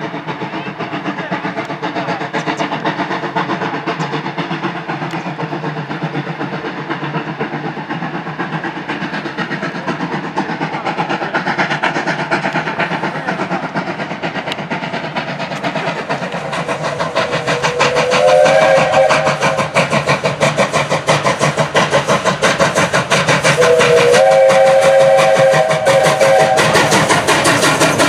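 South African Railways class 19D steam locomotive working hard with a passenger train, its exhaust chuffing in a steady rhythm that grows louder past the halfway point. Its chime whistle sounds twice as a chord of several tones: a short blast that rises in pitch about two-thirds of the way through, then a longer, steady blast a few seconds later.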